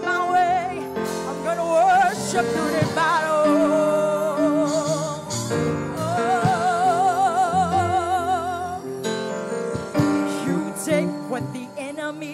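Live gospel worship music: women singing with wide vibrato on long held notes, over keyboard and electric guitar accompaniment.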